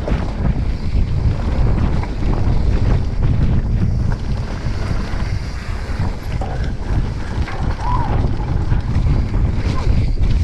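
Wind buffeting the microphone of a camera carried on a mountain bike at speed on a downhill trail, a steady low rumble with scattered clicks and rattles from the bike over rough ground.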